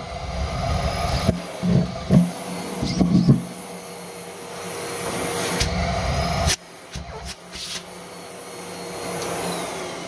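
Miele C3 canister vacuum cleaner running steadily with its hose in a bin, sucking up socks and pantyhose. Irregular thumps in the first few seconds as fabric is drawn into the hose, and a few sharp knocks around seven seconds in.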